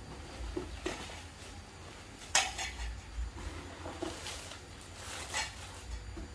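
Kitchenware being handled and unpacked: dishes or utensils clinking and knocking against each other several times, the loudest clink about two and a half seconds in.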